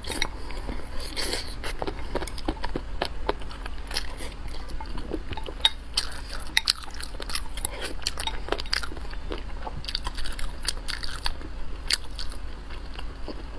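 Close-miked eating: a person biting and chewing crunchy food, with many irregular sharp crunches and wet mouth clicks.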